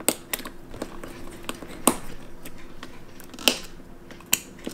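About half a dozen irregular sharp clicks and taps as a stainless steel watch case and bracelet are handled and its movement holder ring is pressed into place. The sharpest clicks come about two and three and a half seconds in.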